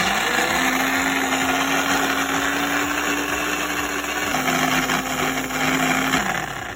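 Countertop blender running, puréeing red bell pepper, onion, garlic, herbs, chili, lemon juice, vinegar and olive oil into peri peri sauce. The motor holds a steady pitch, drops slightly a little after four seconds, then winds down near the end.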